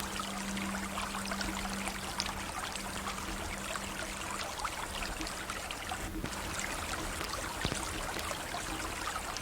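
River water flowing steadily, with small trickling splashes over the rush. A low held music tone fades out during the first few seconds.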